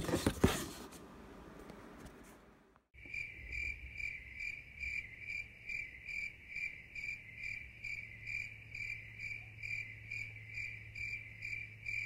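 Cardboard box rustling briefly at the start. About three seconds in, a steady high-pitched chirp begins, repeating evenly about twice a second over a faint low hum.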